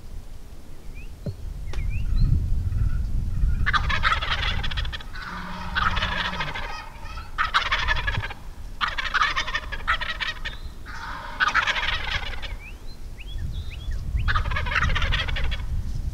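Wild turkey gobbling repeatedly, about six or seven rattling gobbles each about a second long, with faint small-bird chirps between them.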